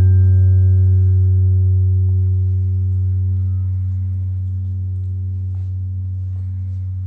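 A sustained low ringing tone with fainter higher overtones, slowly fading away.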